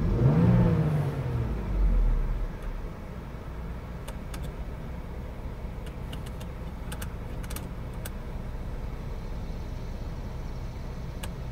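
2020 Ford Explorer engine, heard from inside the cabin, dropping back from a rev with a falling pitch in the first second, blipping once more about two seconds in, then idling steadily in Park. Faint clicks from the drive mode selector come in a run from about four to eight seconds in and once more near the end.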